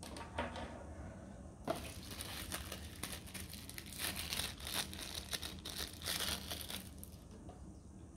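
Plastic packaging crinkling and rustling as it is handled, with many small crackles. It starts about a second and a half in and stops about a second before the end, after a brief rustle at the start.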